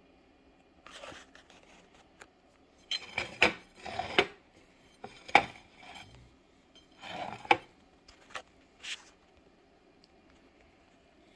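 Metal cutlery clinking and scraping against a ceramic plate: a handful of sharp clinks with softer scraping between them.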